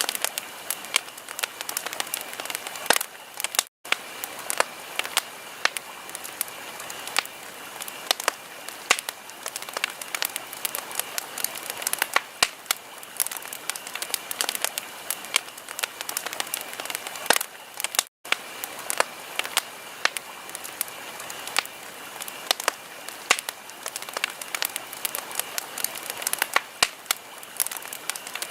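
Wood fire crackling in a fireplace: a steady soft hiss with dense, irregular sharp pops and snaps. The sound cuts out for an instant twice, about four seconds in and again around eighteen seconds.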